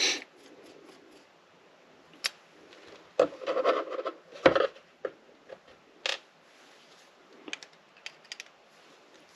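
Handling small parts and tools during bench disassembly of a model locomotive: sharp clicks and taps, with a longer rattling scrape about three to five seconds in.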